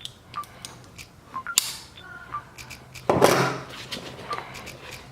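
Hand tools being taken out of a canvas tool bag pouch and handled: scattered clicks and a sharp knock, then a louder rustle and clatter about three seconds in. Faint short chirps recur about once a second.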